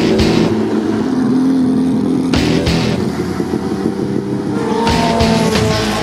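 A race car engine running hard at speed, mixed with rock music. The music's drums drop out for most of the stretch while the engine carries it, and come back near the end.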